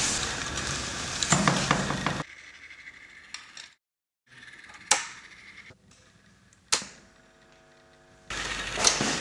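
A cable jack plugged into an electric guitar: a few sharp clicks and pops, the last followed by a steady electrical buzz. A loud noisy stretch cuts off about two seconds in, and loud noise comes back near the end.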